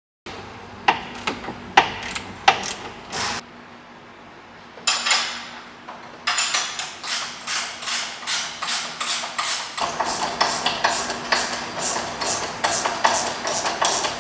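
Metal hand-tool work on car suspension: sharp clicks and knocks, then from about six seconds in a fast, even run of strokes, about two to three a second, like a ratchet wrench being worked.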